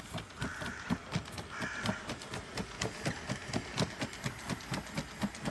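Quadruped robot dog walking over dry leaves and dirt: quick, even footfalls, about three a second. A brief high whine sounds twice in the first two seconds.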